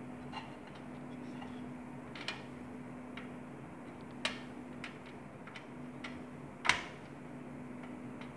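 A handful of sharp clicks and taps from metal and plastic parts being handled inside an HP EliteDesk desktop's steel case, the loudest a little over two-thirds of the way through. A steady low hum runs underneath.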